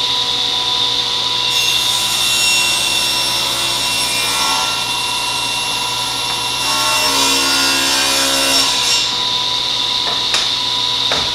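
SawStop table saw running with a steady blade whine, ripping a board along the fence; the cut is heard from about a second and a half in until about nine seconds. Near the end the saw is switched off and begins to spin down.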